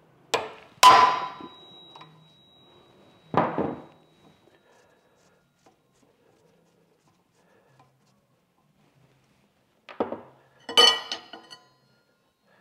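Metal clanks and clinks from hand tools and the crankshaft's steel trigger wheel as the wheel is unbolted and taken off. Two sharp clanks come just after the start, one leaving a high ring for a few seconds, and another follows about three seconds in. After a quiet spell, a cluster of clinks comes near the end.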